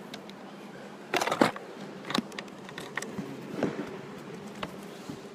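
Handling noise from the recording phone or camera being picked up: a cluster of knocks and rubbing about a second in, then scattered taps and clicks. A steady low hum runs underneath.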